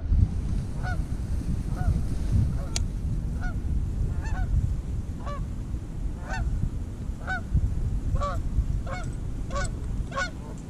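Repeated goose honks, short calls coming every half second to second, over a steady low wind rumble on the microphone.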